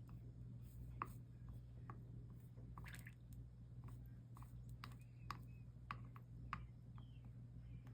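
Faint, scattered small crackles and ticks from solder and flux sizzling under a soldering iron on stained-glass joints, over a steady low electrical hum.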